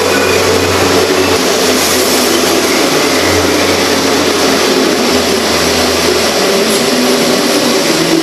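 Hyundai H100 pickup driving, its engine running steadily under load beneath a continuous loud rush of road and wind noise.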